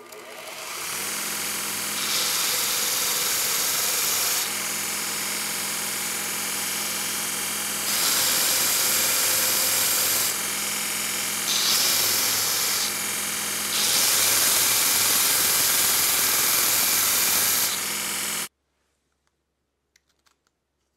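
Belt grinder running with a steady motor hum, its sanding belt grinding a wooden handle block; four times the sound rises to a loud hiss as the wood is pressed to the belt, then eases off. The grinder sound cuts off suddenly near the end, leaving a few faint clicks.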